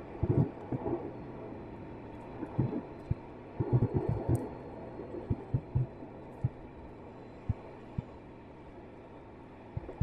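Car cabin noise while driving: a steady road hum with irregular short low thumps.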